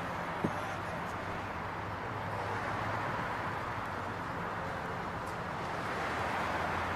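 Steady road-traffic noise with a low engine hum underneath, and one brief click about half a second in.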